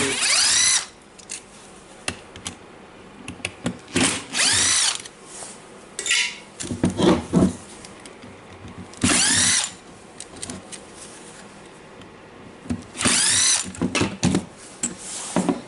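Power screwdriver or drill running in four short bursts, each spinning up and winding down, backing out the screws that hold the gear housing on a Makita DGA452 angle grinder. Small clicks and knocks come between the bursts.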